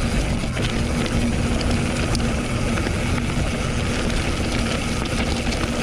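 Steady low rumble and wind noise on the action-camera microphone of a mountain bike in motion, with scattered small clicks and rattles.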